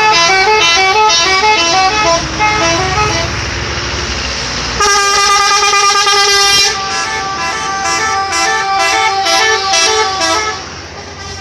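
Indonesian 'telolet' bus horn, a multi-tone musical horn, playing a quick tune of alternating notes. After a low rumbling pause it sounds a long held chord, then a run of short rapid blasts that die away near the end.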